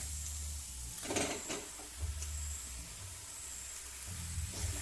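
Marinated chicken being tipped into a pan of cooked-down onion-tomato masala: a few short knocks and scrapes about a second in and again near the end, over a faint steady hiss from the hot pan.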